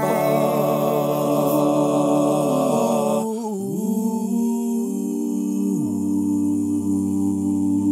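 Singing with little or no accompaniment: a voice holding a few long notes, wavering near the start and then steady.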